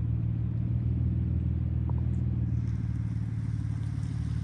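A motor vehicle's engine running steadily at idle, a constant low hum.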